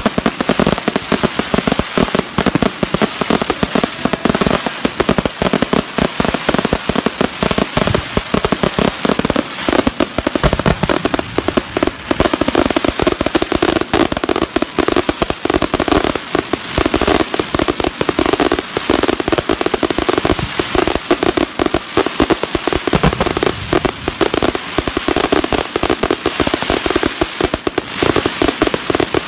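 Aerial fireworks going off in a continuous barrage: many shell bursts and crackling stars packed close together, with bang after bang and no let-up.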